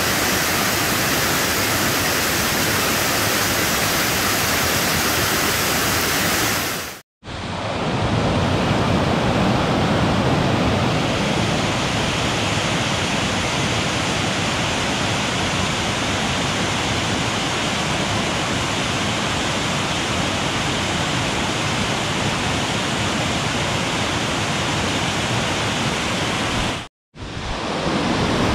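Waterfall swollen by heavy rain, a steady roar of muddy water pouring over granite rocks. The sound drops out briefly twice, about a quarter of the way in and near the end, and after the first break it comes back lower and fuller.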